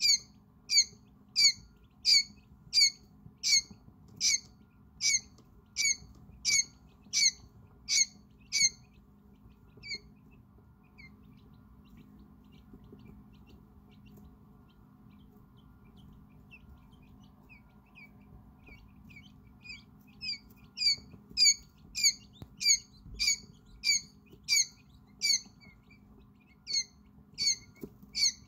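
A hours-old quail chick peeping loudly and insistently, sharp down-slurred peeps repeated about three every two seconds. The calling drops to faint scattered peeps for about ten seconds, then the loud peeping starts again.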